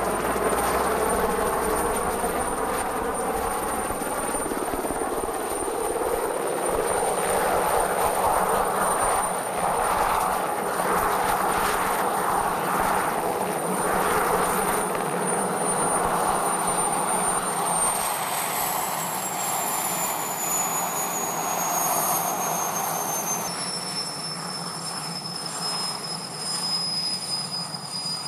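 Alouette II helicopter's turbine engine and rotor running as it hovers and sets down, with a steady high turbine whine. From about two-thirds of the way in the whine falls in pitch in steps as the turbine winds down after landing.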